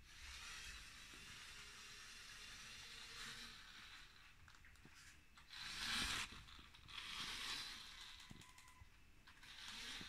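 Motorised LEGO Technic car driving on a wooden floor: a faint electric-motor whir and tyre hiss that swell and fade several times as it speeds up and turns, loudest about six seconds in as it passes close.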